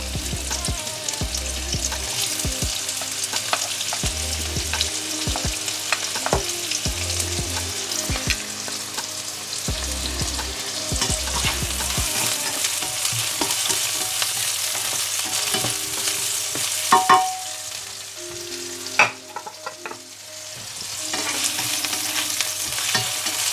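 Onions sizzling in hot oil in a pan as they fry, stirred with a utensil that knocks against the pan now and then. The sizzle dips briefly near the end and then picks up again.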